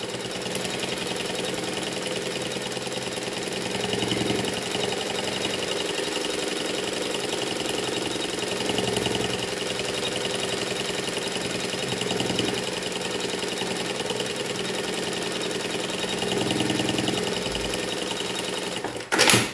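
Industrial straight-stitch sewing machine running steadily, stitching a safety seam through EVA foam and lining fabric. It runs a little louder every few seconds, then stops abruptly near the end.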